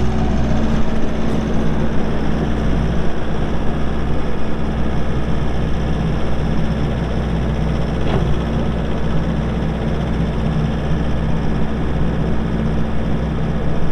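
Kubota SVL65-2 skid steer's four-cylinder turbo diesel running steadily.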